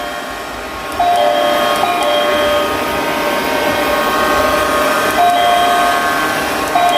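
Sapper Curling robot vacuum cleaner running as it cleans the floor: a steady motor whine over a whirring hiss. The whine's pitch steps up and down a few times as the machine drives and turns, and it grows louder about a second in.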